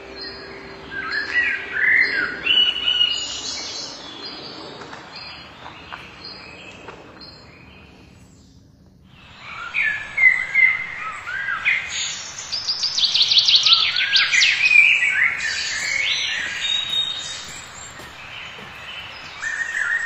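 Several birds chirping and singing in quick, repeated calls. The sound drops almost away about nine seconds in, then returns as a busier chorus of rapid chirps.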